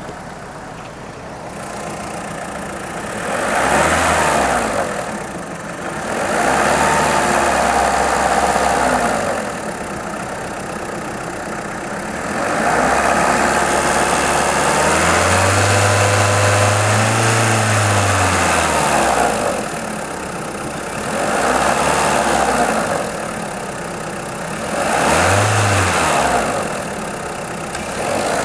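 Volkswagen Polo 6N2's 1.4 16V petrol engine idling and being revved five times, one long hold in the middle, the pitch rising and falling with each rev. The owner hears a clacking from the engine block at idle that stops on acceleration, and does not know its cause.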